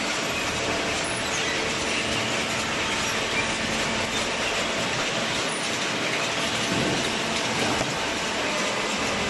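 Steady mechanical noise of machinery running, with no clear rhythm or distinct strikes.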